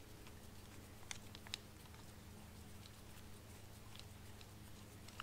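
Faint, sharp clicks of small metal parts being handled while a two-stroke cylinder's power valve is taken apart, two clearer ones about a second in and fainter ones later, over a low steady hum.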